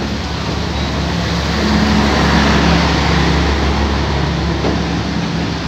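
Vietnam Railways passenger coaches rolling past close by, a steady rumble of steel wheels on rail with a low hum underneath, swelling a little about two seconds in.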